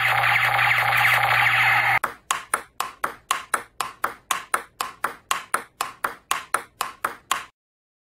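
A loud steady noise with a low hum for about two seconds. It gives way to a fast table-tennis rally: celluloid ball clicking off paddles and table about four times a second, stopping suddenly near the end.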